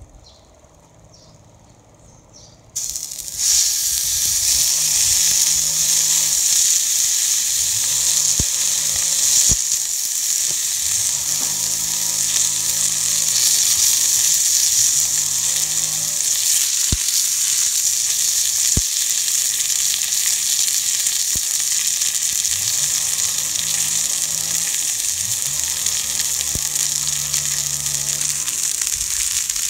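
Marbled beef steak laid on a hot seasoned iron griddle plate about three seconds in, searing with a sudden, loud, steady sizzle.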